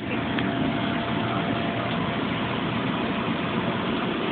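Steady engine-like drone with a faint steady whine running through it.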